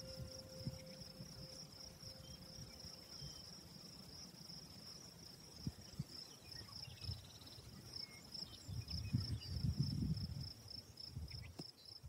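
A cricket-like insect trilling steadily in fast, high-pitched pulses over a low rumble that swells about nine to ten seconds in.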